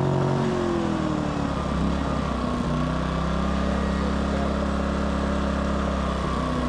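Westinghouse iGen2500 inverter generator's engine running just after a pull start. Its speed falls over the first two seconds or so, then holds steady with efficiency mode off. The repaired carburetor lets it start easily and run without surging.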